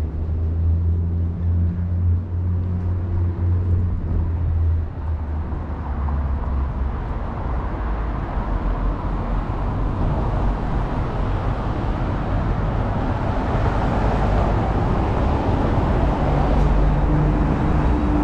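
City street traffic. A heavy vehicle's engine hums low and steady for the first several seconds, then the noise of passing traffic swells and is loudest in the second half, with another engine's tone coming in near the end.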